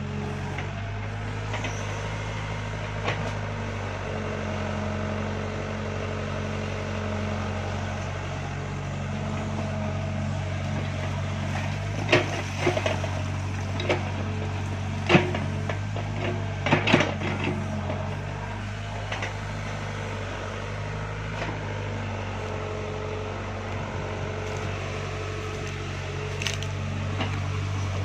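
Excavator's diesel engine running steadily while it digs and heaps wet mud, with a few sharp knocks and cracks, some close together, about halfway through.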